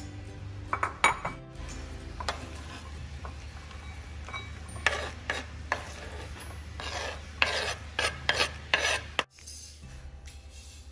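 Cucumber and carrot sticks scraped off a wooden cutting board into a white bowl: a run of short scraping, sliding sounds over a few seconds, after a couple of sharp clinks as the bowl is set out.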